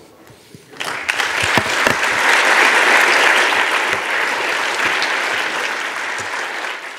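Audience applause, breaking out about a second in, strongest around the middle and slowly fading.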